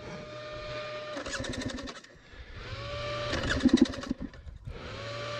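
Dirt bike's electric starter cranking the engine in repeated tries, each a short whine followed by a burst of rapid chugging, two full tries and the start of a third. The engine doesn't fire because the kill switch is off.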